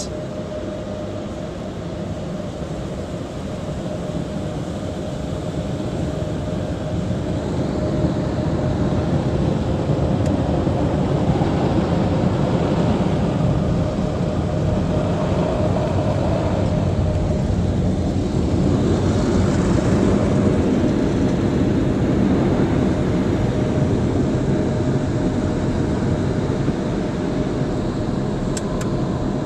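Automatic car-wash blow dryers passing over the car, heard from inside the cabin: a loud, steady rush of air with a constant hum beneath it, growing louder over the first several seconds as the blowers come overhead.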